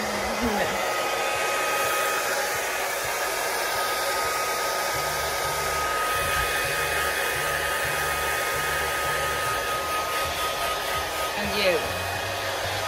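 Hand-held hair dryer running steadily while blowing on damp hair: a constant rush of air with a thin, steady whine on top.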